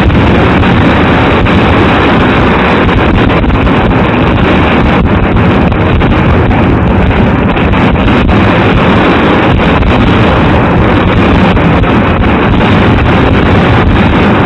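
Fireworks barrage at close range, overloading the microphone into a dense, steady, very loud rumble with no single bang standing out and faint cracks scattered all through it.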